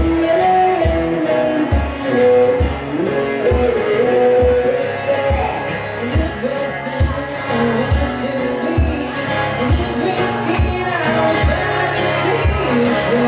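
Live acoustic guitar strummed with a voice singing over it, and a steady low thump keeping the beat.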